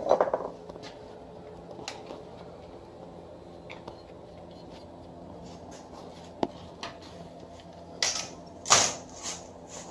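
Handling of a Mazda Miata transmission's aluminium case on a workbench: a few light clicks and knocks, then a louder clatter of metal about eight seconds in, over a steady low hum.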